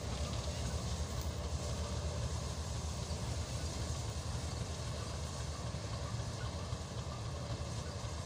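Diesel railway locomotive running at a distance: a steady low rumble with no clanks or knocks.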